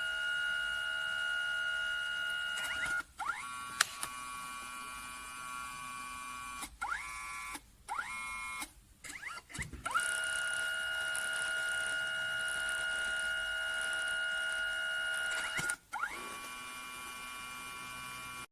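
A Kodak Mini Shot 3 Retro's photo-printing mechanism running: a steady motor whine that runs in long stretches, broken by clicks and quick rising sweeps in pitch as the paper feed stops and changes.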